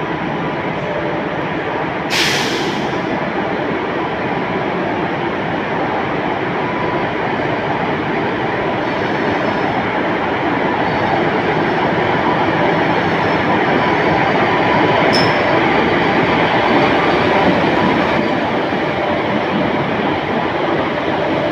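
WAP-1 electric locomotive hauling passenger coaches slowly past as it departs: a steady rumble of the train running, growing louder as the locomotive and coaches go by. A short burst of hiss comes about two seconds in.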